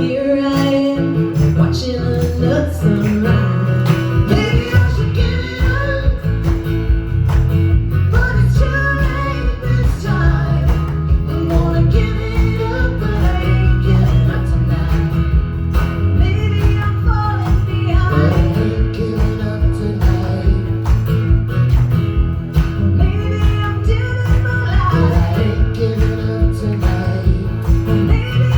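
Country-rock song played by a band with guitars and a steady beat, with no words sung.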